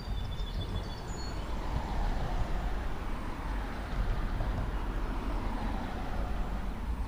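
Road traffic crossing the bridge overhead, heard from beneath it: a steady low rumble with a vehicle's tyre noise swelling in the middle and fading again.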